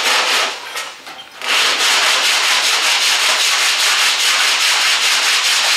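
Hand sanding block with sandpaper rasping over hardened Bondo body filler on a car's quarter panel extension. One short stroke comes at the start, then after a brief lull it settles into continuous quick, even strokes, several a second, from about a second and a half in.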